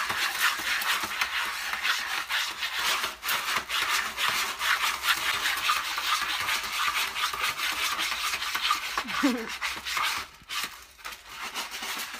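A cat digging and scratching in a plastic litter tray of pellet litter: a continuous stream of quick rustling scrapes as the granules are raked against each other and the tray. The scraping thins out near the end.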